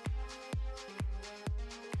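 Background electronic dance music with a steady kick drum, about two beats a second.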